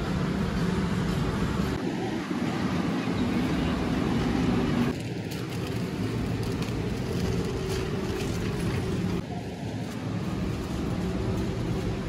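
Steady background hum of a large warehouse store, a low rumble with a faint murmur in it, changing level abruptly about two, five and nine seconds in.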